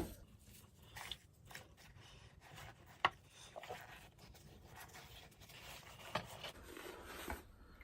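Faint scattered knocks, clicks and rubbing as someone rummages in a bucket for soaked vise parts.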